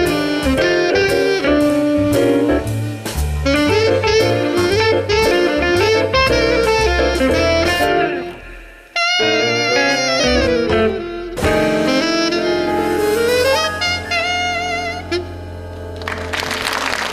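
Live jazz duet of saxophone with piano accompaniment: held, wavering melody notes over a moving bass line, a short break about halfway, then the closing phrase. Applause breaks out right at the end.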